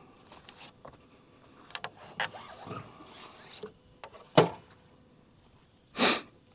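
A few scattered knocks and clatters, the sharpest about four and a half seconds in and a louder short burst about six seconds in, over faint steady insect chirring.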